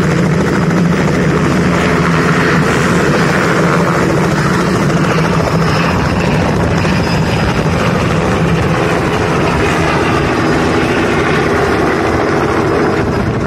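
Small two-blade helicopter lifting off and climbing away: loud, steady rotor and engine noise that eases slightly near the end as it draws off.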